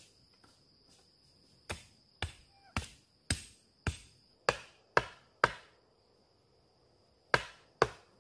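Axe chopping: eight sharp strikes about half a second apart, then two more after a short pause. Insects shrill steadily throughout.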